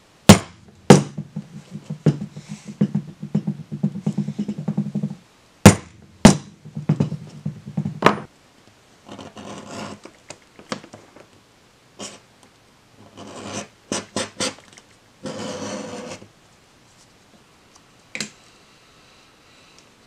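A pricking iron being struck with a mallet to punch stitching holes through sheath leather: several sharp knocks in the first eight seconds with lighter, quicker taps between them. After that comes a softer scraping as a hand tool is drawn along the leather, in a few short stretches.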